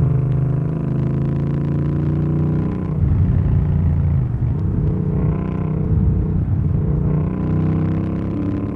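2025 Yamaha MT-07's parallel-twin engine running under way, its note stepping down and back up a few times with throttle and gear changes. About five seconds in, the pitch climbs as the bike accelerates.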